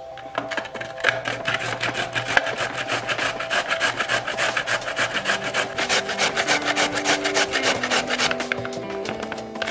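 Fresh carrot grated by hand on a stainless steel grater plate set in a plastic frame: a quick, even rhythm of rasping scrape strokes.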